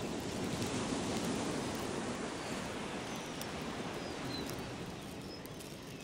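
Rustling and scraping noise from hands and a small tool working against the fabric wheel-well liner, louder in the first half and easing off toward the end.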